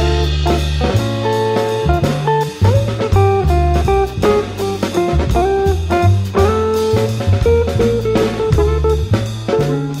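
Jazz trio instrumental music: a plucked guitar melody over a walking bass line and drum kit.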